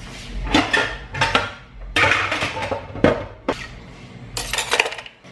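Dishes and kitchen utensils clattering in a stainless-steel sink during dishwashing: a series of sharp clinks and knocks with short gaps between them.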